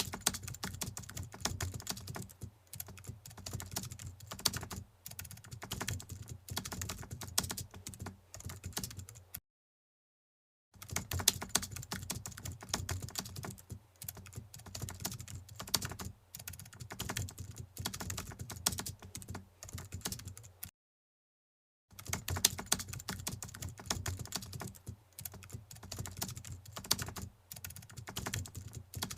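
Rapid keyboard typing: a dense, irregular run of key clicks that stops dead twice for about a second, roughly a third and two-thirds of the way through.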